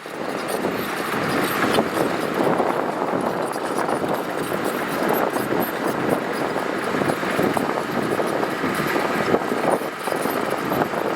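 Heavy earthmoving machinery working gravel: a diesel engine running under load with the grinding rush of gravel being moved, steady throughout.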